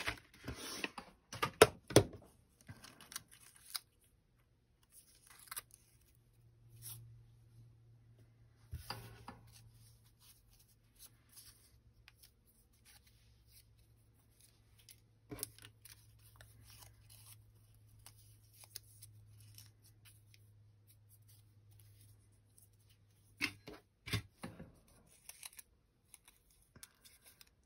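Paper slips and card being handled on a tabletop: paper rustling with scattered small clicks and taps, loudest in the first couple of seconds and again near the end.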